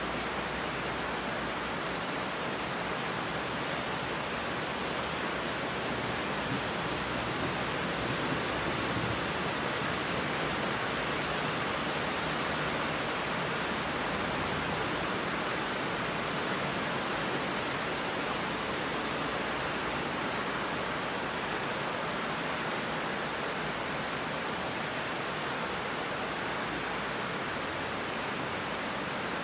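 Heavy rain falling steadily on a road and trees, a constant even hiss with no let-up.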